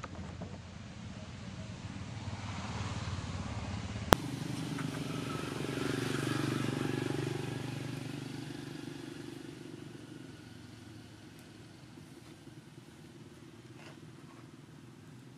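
A motor vehicle passing by: a low engine hum that swells to its loudest about six or seven seconds in, then fades away. A single sharp click sounds about four seconds in.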